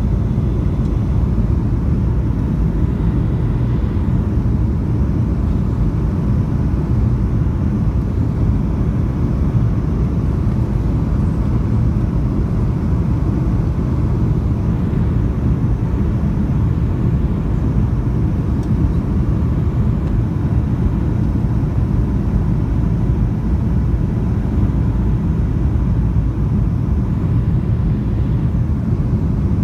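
Steady low rumble of a jet airliner heard inside the cabin on approach: engine and airflow noise, with a faint steady hum above it.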